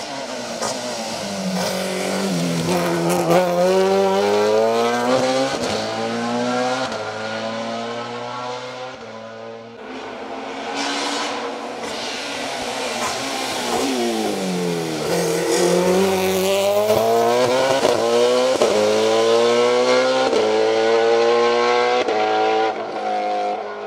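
BMW 320i STW E36 touring car's naturally aspirated, high-revving four-cylinder 2.0-litre engine on individual throttle bodies, at racing pace. Twice the revs drop as the car brakes and downshifts for a corner, then climb hard through a series of upshifts as it accelerates away.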